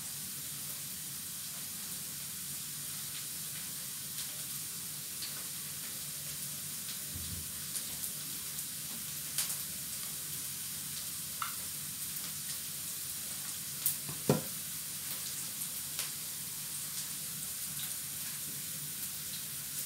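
Onion and garlic sautéing in cooking oil in a frying pan, a steady sizzle. A few short sharp clicks stand out over it, the loudest about 14 seconds in, as kitchen scissors snip squid into pieces.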